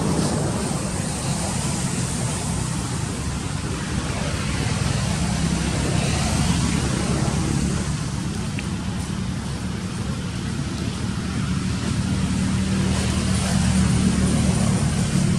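A motor vehicle running nearby: a steady, low engine hum that carries on without a break.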